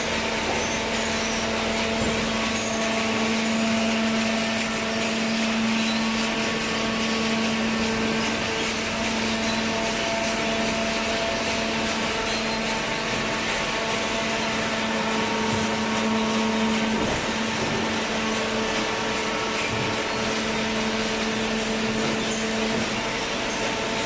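Horizontal cardboard baler running: a steady machine hum with a constant drone under an even noisy wash.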